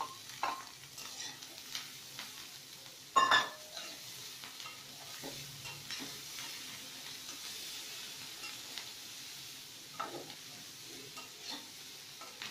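Vegetables and paneer stir-frying in an aluminium kadai: a steady sizzle with the scrape and tap of a spatula stirring, and one loud metal knock against the pan about three seconds in.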